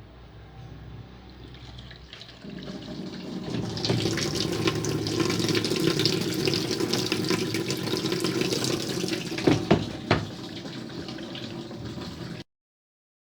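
Water running from a hose into the wash tub of a twin-tub washing machine, getting louder a few seconds in. Two sharp knocks come near the end, and then the sound cuts off suddenly.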